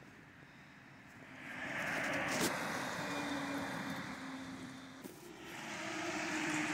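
Heavy trucks passing close by on a road, twice: tyre and engine noise swells up and dies away, then a second vehicle swells up near the end.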